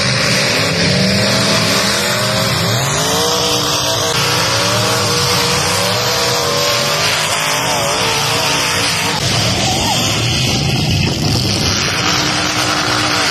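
Engines of several demolition derby cars revving and running at once on a dirt arena, their pitches rising and falling over one another.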